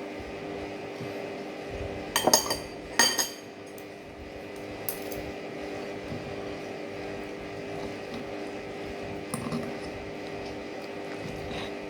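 Eating utensils clinking against tableware: two sharp clinks a little over two seconds in, a fainter one near nine seconds, over a steady hum.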